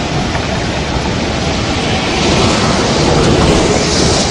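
The Seti River in flash flood, its swollen floodwater rushing past in a loud, steady rush that grows a little louder about halfway through. The flood was raised by an avalanche upstream, which onlookers take for a burst glacial lake.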